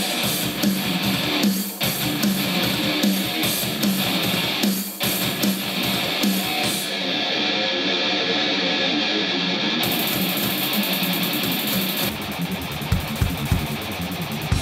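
Guitar music playing through a Genius SP-HF800A 2.0 computer speaker pair from a connected MP3 player. The top end dulls for a few seconds partway through, then comes back, and deep drum beats come in near the end.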